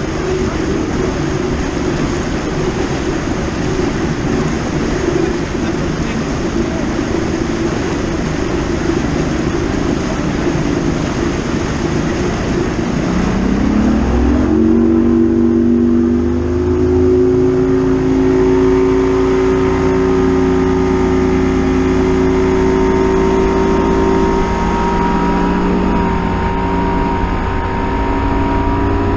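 Bass boat's outboard motor running under way, with wind and water rush over the microphone. About halfway through, the engine note rises and then holds steady while the wind noise eases.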